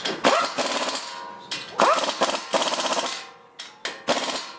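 Pneumatic impact wrench tightening brake caliper bolts, run in three bursts, each starting with a rising whine and going on as rapid, even hammering.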